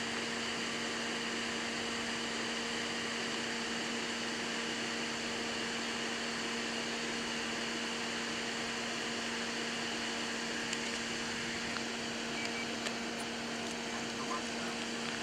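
A steady hum with two level tones over an even hiss, unchanging throughout and cutting down at the very end.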